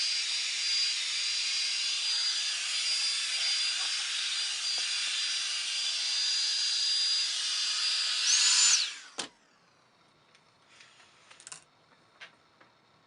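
Revlon One Step hot-air brush dryer running with a steady rush of air and a high motor whine. About eight seconds in its pitch rises briefly, then it is switched off and the motor winds down with a falling whine. A few faint clicks of handling follow.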